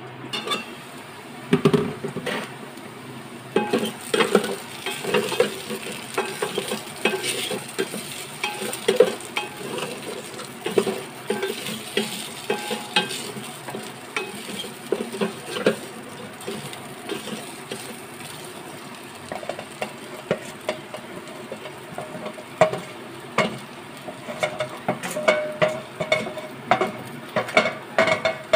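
Wooden spatula stirring chopped okra frying in oil in a metal pot: irregular scrapes and knocks of the spatula against the pot over a steady sizzle. A heavier knock about a second and a half in comes as the metal lid is taken off.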